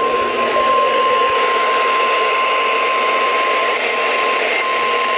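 NOAA Weather Radio 1050 Hz warning alarm tone: one long, steady, high beep over heavy radio static, the attention signal that comes before a warning message.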